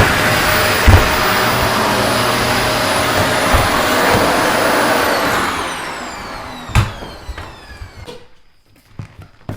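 Vacuum cleaner running with a steady high whine, then switched off about five seconds in, the motor whine falling in pitch as it spins down over a few seconds. Several sharp knocks come during and after the spin-down.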